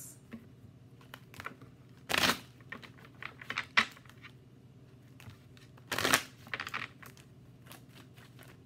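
A deck of tarot cards being shuffled by hand: scattered card flicks and taps, with two louder swishes about two and six seconds in.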